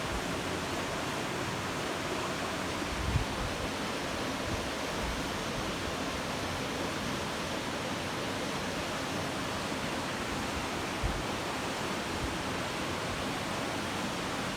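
Steady rush of falling water. There are brief low wind thumps on the microphone about 3 seconds in and again near 11 seconds.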